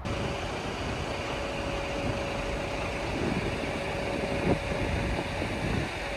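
Vehicle engines idling in a queue: a steady mechanical hum with a steady whine running through it, and a brief louder swell about four and a half seconds in.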